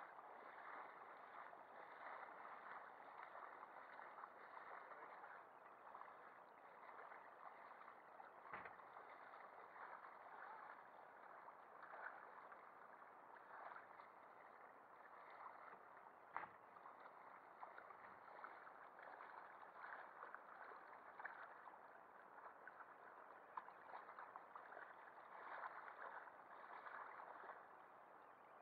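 Faint, muffled water noise with a light steady crackle from shallow water around a camera sitting in a drop net, with two soft knocks, one about a third of the way in and one just past halfway.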